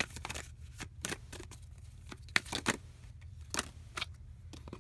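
Tarot cards being shuffled and handled by hand: a run of irregular sharp card clicks and snaps, the loudest just past the middle, over a low steady hum.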